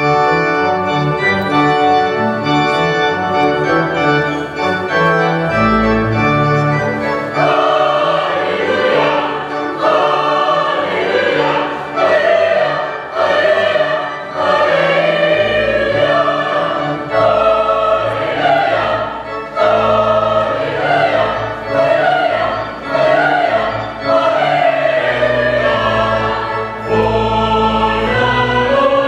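Choir singing a carol with organ accompaniment. The music starts suddenly with held organ chords and deep bass notes, and the voices come in about seven seconds in.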